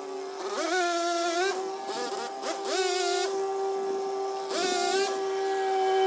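Small engine running steadily, revved up in three short bursts, each with a climbing pitch.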